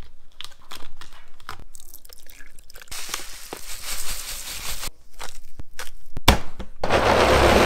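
Food being added to a plastic blender jar: a run of clicks and knocks from handling, then a rustling hiss as rolled oats pour from a paper bag into the jar. A twist grinder cranked over the jar gives a string of clicks, and a loud, dense, steady noise starts near the end.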